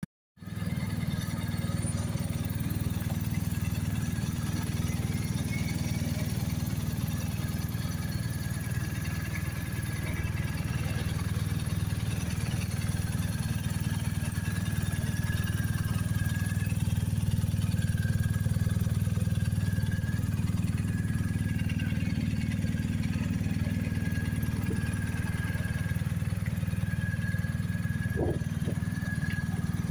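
BMW R 1250 GS Adventure's 1254 cc boxer twin engine idling steadily, with no revving.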